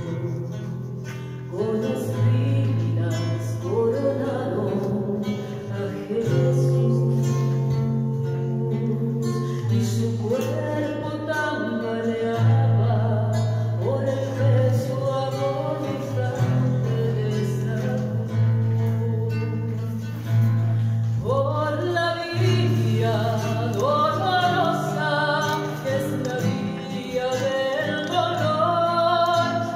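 A woman singing a hymn into a microphone, accompanied by acoustic guitar, with held low keyboard notes underneath. Her voice climbs higher in the last third.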